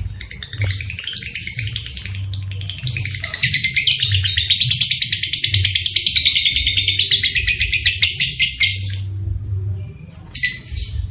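Lovebird calling: shrill chirps, then a long, fast chattering trill (the 'ngekek' call) that runs from a few seconds in until about two seconds before the end, breaks off, and returns in a short burst near the end.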